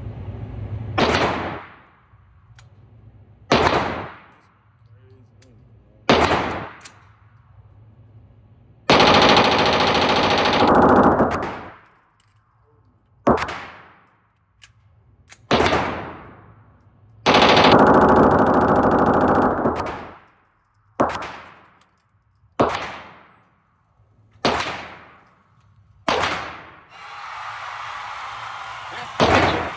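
Firearm shooting at a range: single shots a few seconds apart, each trailing off in echo. Twice, a third of the way in and again past the middle, comes a long rapid-fire burst lasting about two and a half seconds.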